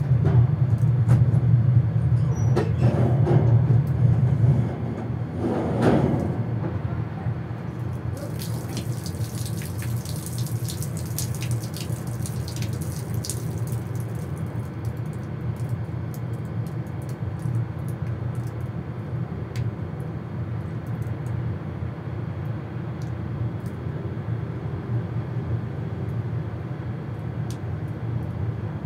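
Steady low mechanical hum, like an engine or generator running, louder for the first few seconds and then settling lower, with faint crackling in the middle.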